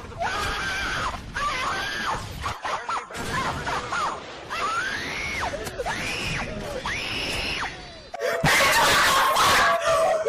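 A voice wailing in a string of drawn-out cries, each rising and then falling in pitch, about one a second. About eight seconds in it breaks into a much louder, harsh scream.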